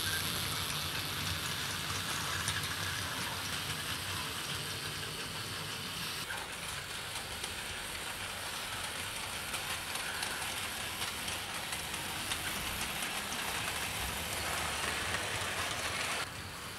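Hornby OO gauge GWR 2721 pannier tank model running with a train of freight wagons: a steady whir of the small electric motor and the wheels rolling on the track. It cuts off suddenly near the end as the locomotive comes to a stop.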